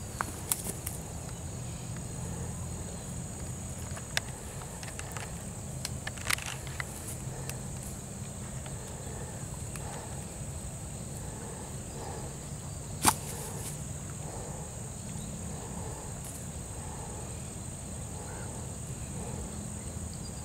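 Outdoor ambience of insects keeping up a steady high buzz over a low steady rumble, broken by a few sharp clicks, the loudest about thirteen seconds in.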